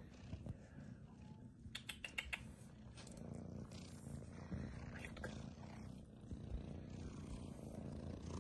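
Small kitten purring, a faint, steady low rumble, with a few light clicks about two seconds in and again near the middle.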